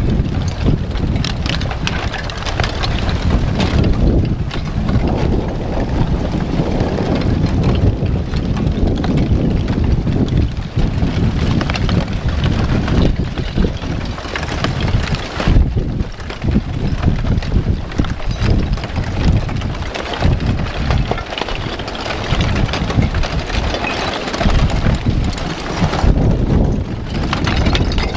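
Strong wind buffeting the microphone: a heavy, gusting rumble that rises and falls throughout.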